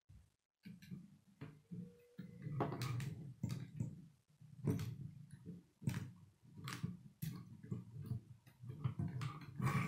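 K'nex plastic rods and connectors being handled and snapped together: a series of sharp plastic clicks over a low rattle of parts being fitted.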